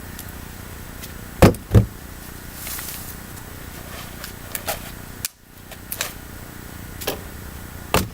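Firewood being chopped and handled by hand: two loud wooden knocks in quick succession about a second and a half in, then a few lighter knocks spaced out over the rest.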